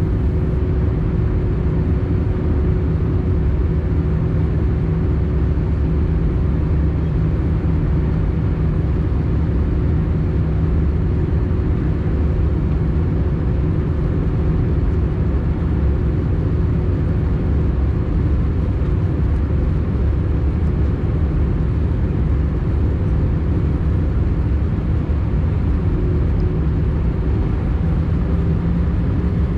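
Steady in-cabin noise of an Airbus A320 with CFM56-5B engines at descent: a deep, even rumble of airflow and engines with a low steady hum over it.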